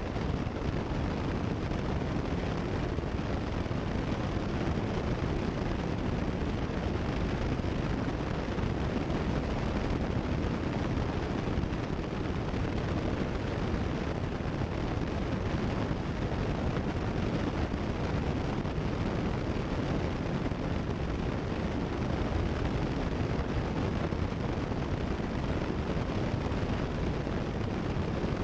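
Steady drone of a Cessna 172 Skyhawk's engine and propeller in level cruise flight, heard through the cockpit headset intercom feed.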